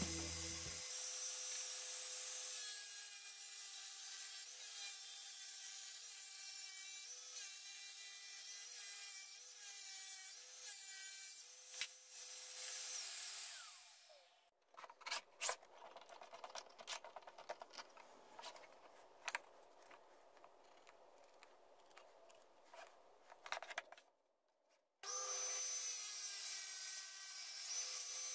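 Small benchtop table saw running with a steady motor whine that dips briefly in pitch several times, then stops about 13 seconds in. About ten seconds of knocks and rubbing follow as wood is handled. The saw starts up again about 25 seconds in.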